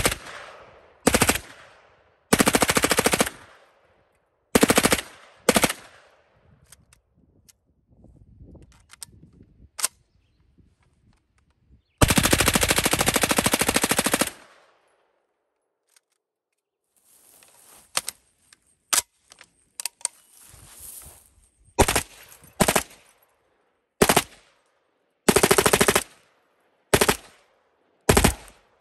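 Full-auto gunfire in bursts: several short bursts, then one long burst of about two and a half seconds near the middle, then a run of short bursts and single shots.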